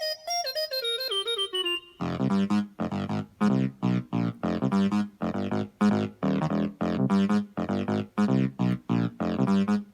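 E-MU Vintage Pro sound module playing one of its built-in keyboard presets through a small Bluetooth speaker: a falling run of notes, then from about two seconds in a steady rhythm of short repeated chords.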